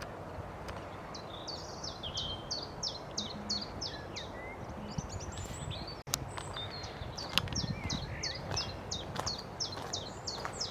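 A songbird singing two long runs of repeated high, hooked notes, about four a second, over steady outdoor background noise. The song breaks off briefly about halfway through.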